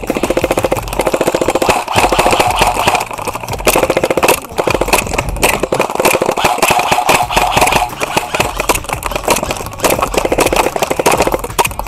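Airsoft electric rifles firing full-auto in long bursts with brief pauses: a fast, buzzing rattle of many shots a second as the gearboxes cycle.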